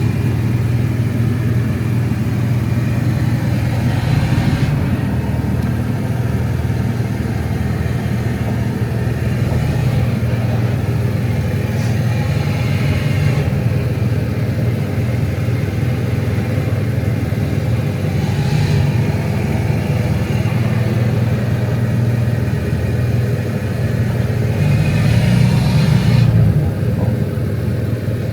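An engine running steadily, with four brief swells in level a few seconds apart.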